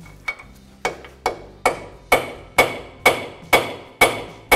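Hammer striking a steel punch held against a partly drilled-out lower ball joint rivet, about two blows a second that grow louder over the first couple of seconds, each with a short metallic ring. The blows are meant to break off the rivet head, which is not yet coming free.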